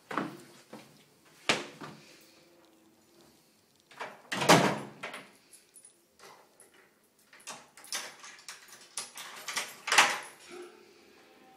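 Interior doors being opened and closed: a handful of separate knocks and thumps, the loudest and longest about four and a half seconds in and another near the end.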